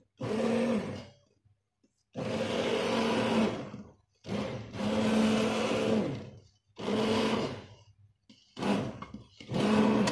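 Electric stick blender running in short pulses, about six bursts of one to two seconds with brief pauses, its motor humming steadily while it churns thick liquid-soap batter of oils and potassium hydroxide in a stainless steel pot.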